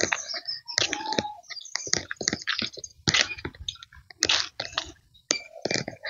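Footsteps crunching on a dry dirt trail strewn with dead leaves and twigs, coming as an irregular run of short crackles a few times a second.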